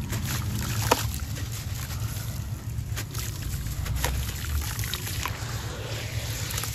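Wet sand-cement chunks crumbling in hands in a tub of muddy water, with sloshing and several sharp crunchy clicks as pieces break, about a second in and again around three, four and five seconds, over a steady low rumble.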